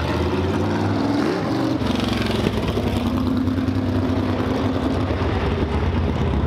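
Engine of a vintage open-wheel race car accelerating past, its pitch rising about a second in and then holding a steady note.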